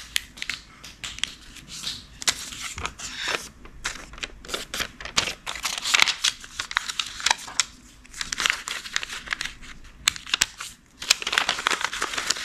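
A square of origami paper being folded and creased by hand: irregular rustling and crinkling with many short sharp crackles as the horizontal, vertical and diagonal folds are pressed flat.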